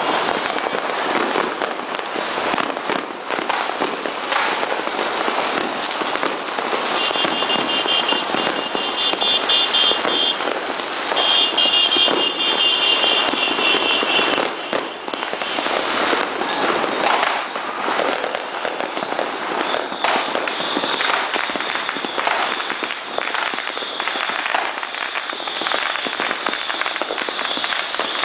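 Fireworks and firecrackers going off in large numbers, a dense, continuous crackle of pops and bangs. A high pulsing tone sounds twice in the first half, for a few seconds each time.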